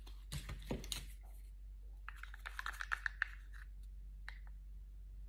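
Faint handling clicks, then a quick run of small scraping ticks as a stick is worked in a glass jar of thinned black cell-activator paint, then a few more clicks.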